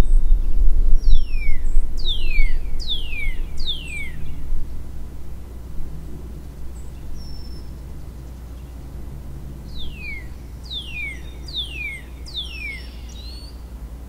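A songbird singing two phrases, each a run of four quick downslurred whistled notes, the first about a second in and the second about ten seconds in. A low rumble lies underneath and fades over the first half.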